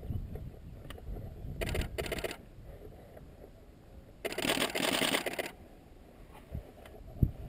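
Camera shutter firing in rapid continuous bursts: two short bursts about two seconds in, then a longer burst of about a second and a half midway, as the photographer shoots a marsh harrier in flight. A low thump near the end.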